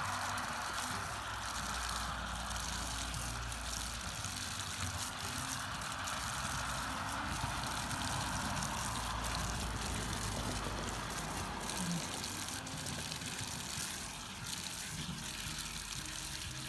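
Water running steadily from an outdoor foot-wash spigot and splashing over bare feet, easing a little about two-thirds of the way through.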